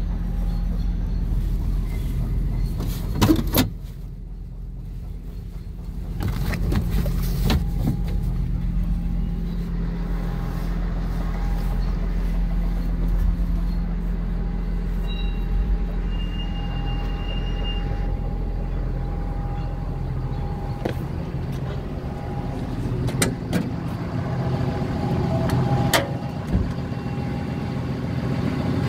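Hyundai Robex 220LC-9A excavator's diesel engine running steadily. A sharp knock comes about three seconds in, after which the engine is briefly quieter, and a few clicks and knocks follow near the end.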